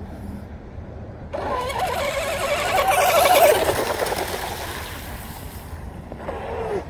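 RC drag boat's twin Leopard 2860 brushless electric motors and props taking off at full throttle about a second in: a sudden high whine with the hiss of spray. It peaks after a couple of seconds and then fades as the boat runs away across the water.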